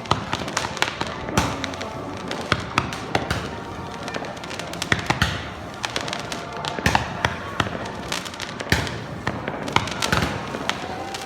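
Fireworks going off: many irregular sharp bangs and crackles, some close together and some with a short ringing tail.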